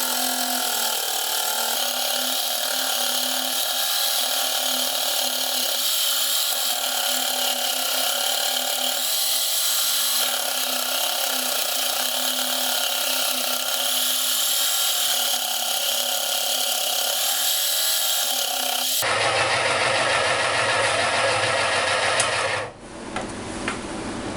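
Homemade jigsaw-driven scroll saw running and cutting thin sheet wood, a steady power-tool buzz whose pitch wavers slightly with the load. The sound changes abruptly about three quarters of the way through and drops off sharply near the end.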